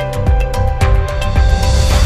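Music with a steady beat of about four strikes a second over held chords, swelling near the end.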